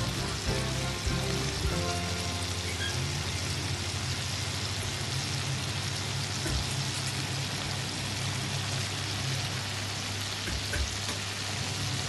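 Beef steaks sizzling steadily in foaming butter in a frying pan, with background music underneath.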